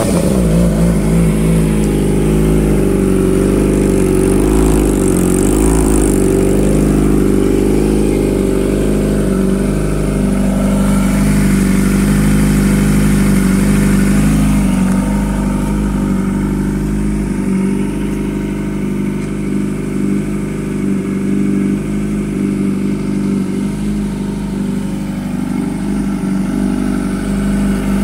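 Kawasaki ZX-25R's 250 cc inline-four engine running steadily at idle while it warms up, heard through a DX Generation GPR aftermarket exhaust.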